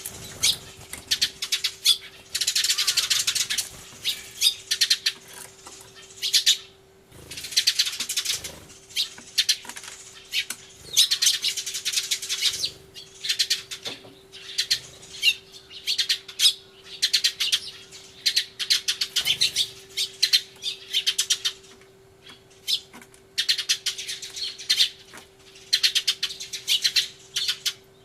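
A flock of Eurasian tree sparrows chirping loudly and frantically, in dense bouts of rapid overlapping chirps broken by short pauses every few seconds.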